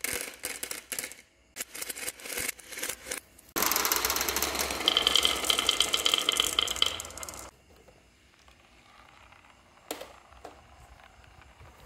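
Glass marbles on a toy marble run. For the first few seconds they click and clack in quick runs as they roll down a metal rail and drop into a plastic bin. Then a dense, loud rattle of many marbles rolling together through the track follows for about four seconds, with a high steady ringing tone through its middle. After that it goes quiet, apart from a single click about ten seconds in.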